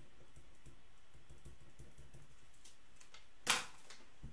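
Faint, light clicking, with one sharp click about three and a half seconds in and a softer one near the end.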